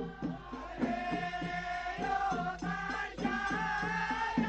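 Background music: a drawn-out, chanted melody over a steady drum beat of two to three strokes a second.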